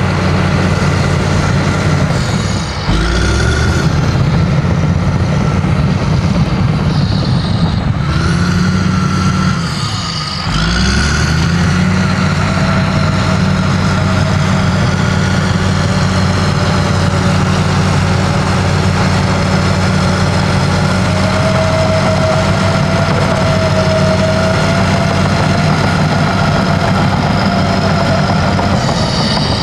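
Caterpillar D6M LGP bulldozer's diesel engine running steadily under load while it pushes dirt. The engine note sags briefly twice, about 3 and 10 seconds in, and sweeps back up. A thin, higher whine holds through the second half.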